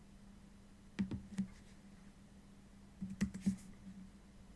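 Light, sharp clicks in two pairs, about a second in and again about three seconds in, over a faint steady hum.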